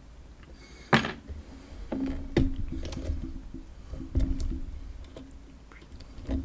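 Sharp metallic clicks and light rattling from a just-opened PacLock padlock and its picking tools being handled, the loudest click about a second in and a few softer ones after.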